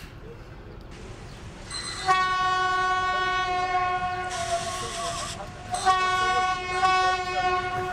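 Diesel locomotive's horn sounding a long steady single-note blast from about two seconds in, with a burst of hiss in its second half. After a brief break, a second blast starts near the end.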